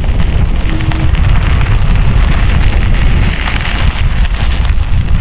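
Mountain bike descending a dirt trail: wind rushing and buffeting over the microphone, loud and constant, with tyres and bike rattling and crackling over the rough ground.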